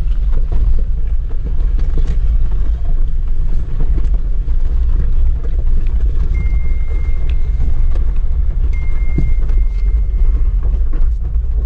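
Cabin sound of a Jeep Wrangler Rubicon crawling down a rocky hill trail: a steady low engine and drivetrain rumble, with a few light knocks from the body going over stones.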